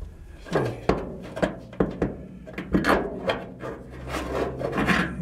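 Handling noise of an electric windshield wiper motor being fitted against the sheet-metal cab header of a 1949 GMC pickup: a series of sharp knocks and clunks with scraping and rubbing in between.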